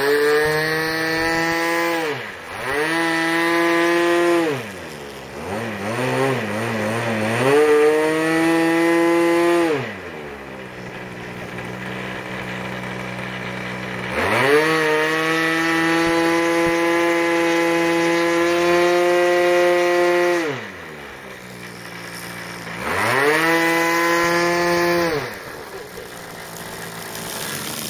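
Saito three-cylinder four-stroke radial engine on a scale Deperdussin model airplane, with the throttle opened and closed over and over: several runs at high power of two to six seconds each, broken by drops to a low idle. It settles to a low idle near the end.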